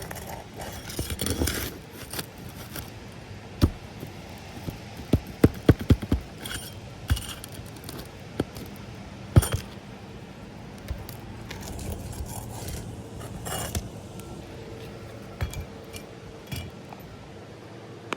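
Roofing hand work on asphalt shingles during a shingle repair: scraping with metallic clinks and sharp taps, including a quick run of knocks about five to six seconds in and a single hard knock a few seconds later.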